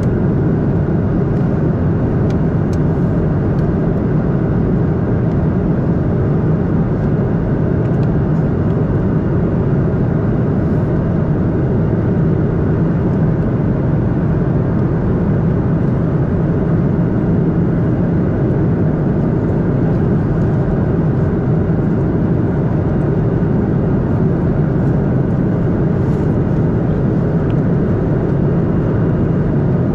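Steady cabin roar of a Boeing 737-800 in flight, the hum of its CFM56 turbofan engines and the rush of air past the fuselage heard from inside the passenger cabin. A deep, even noise that holds at the same level throughout.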